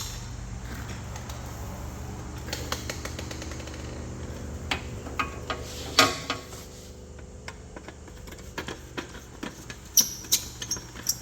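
Scattered clicks and knocks from hand work on a Humvee headlight as it is taken out of its housing, the sharpest about six seconds in and a cluster near ten seconds, over a steady low hum.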